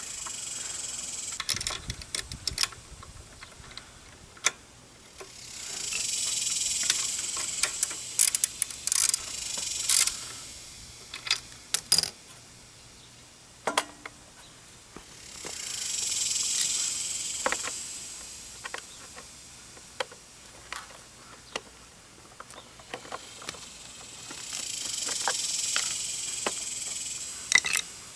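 Scattered metallic clicks and clinks of hand tools and small parts as the cover over the pressure washer engine's carburetor is taken off. Behind them, a high insect drone, like cicadas, swells and fades three times.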